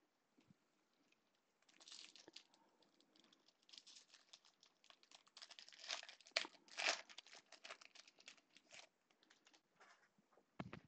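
Foil wrapper of a 2017 Bowman baseball card pack being torn open and crinkled by gloved hands: a run of crackles starting about two seconds in, loudest in the middle. A thump near the end.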